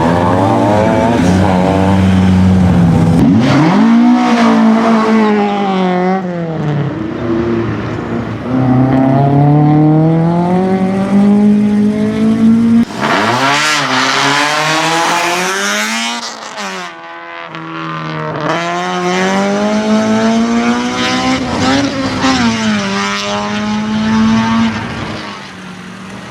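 Racing car engine at full throttle, its note climbing and then dropping again about half a dozen times as it accelerates, changes gear and slows for corners, the sound fading a little near the end.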